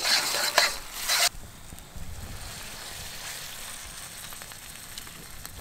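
Peppers and garlic sizzling in a hot wok over a gas burner, stirred with metal tongs that click against the pan. About a second in the loud sizzle cuts off suddenly, leaving a faint steady hiss.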